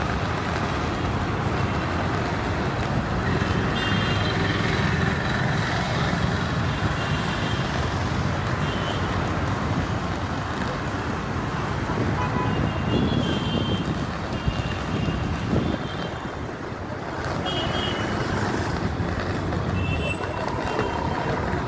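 Busy road traffic: vehicle engines and tyres running steadily, with short horn toots several times.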